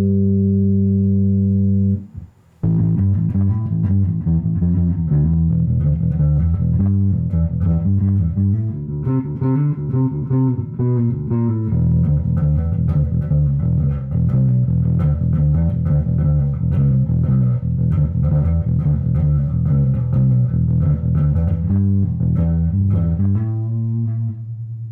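Rickenbacker 4003 electric bass with single-coil pickups and Circle K balanced tension strings, played through an Orange AD200B Mk3 valve amp and 4x10 cabinet. A held note stops about two seconds in, then a continuous run of bass lines follows, ending on a ringing held note.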